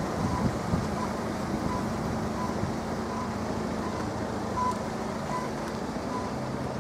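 Level crossing warning alarm, heard faintly as short beeps repeating about every three quarters of a second, over a steady low rumble.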